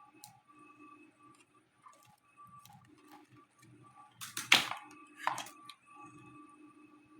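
Light clicks and knocks of a laptop being handled, with two louder short clattering knocks about four and five seconds in, over a faint pulsing hum.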